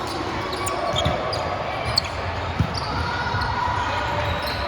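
Volleyballs thudding on a gym floor and off hands: a few sharp thuds about a second apart, with short high squeaks in between.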